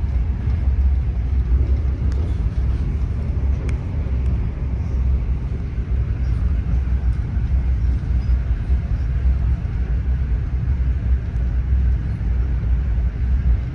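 Passenger train running, heard from inside the carriage as a steady low rumble.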